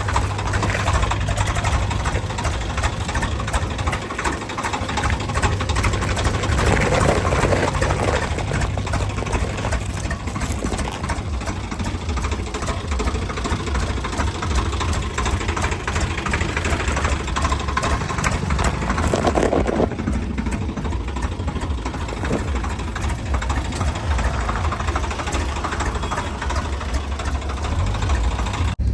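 Heavy diesel engine running steadily with a low, knocking rumble, growing louder briefly twice, about seven and nineteen seconds in.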